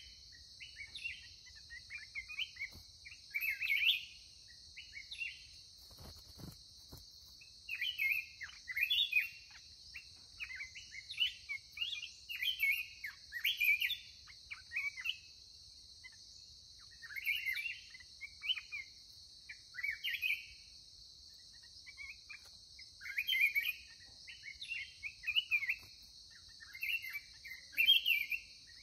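Black-crested bulbuls singing: short bursts of bright, warbling chirps repeated every second or two, over a steady high insect drone.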